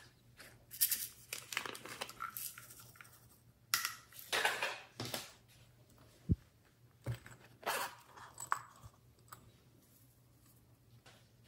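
Close handling noises of small plastic and silicone toy cases: irregular rustling and scraping with a few sharp clicks and knocks.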